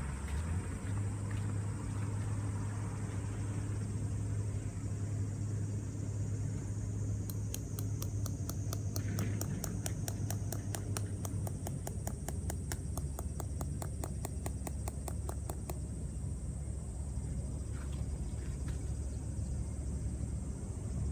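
Low rumble of wind on the microphone. A third of the way in, a sharp, even ticking starts, about four ticks a second, and stops after about eight seconds.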